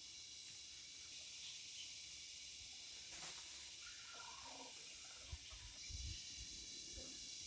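Faint outdoor ambience with a steady high hiss, a brief rush about three seconds in and a few low thumps around the sixth second.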